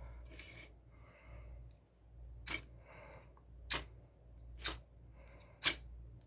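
Ferrocerium rod struck with a ceramic striker four times, about once a second, each a short, sharp scrape throwing sparks. The last strike is the loudest, and there is faint handling rustle between strikes.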